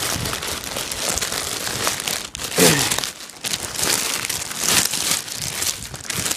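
Packaging being crinkled and rustled as an item is unwrapped by hand, in repeated swells, with a short falling tone about two and a half seconds in.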